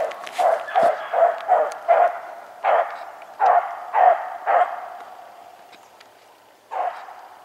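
Beagles giving mouth on a rabbit's trail, barking as they run the track: a quick run of about ten barks over the first four and a half seconds, then a lull and one more bark near the end.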